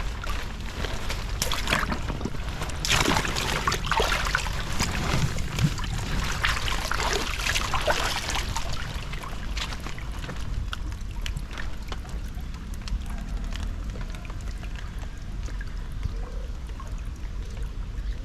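Floodwater pouring and splashing through a culvert being cleared of debris, busy with splashes and knocks for the first half, then settling into a steadier flow, over a constant low rumble.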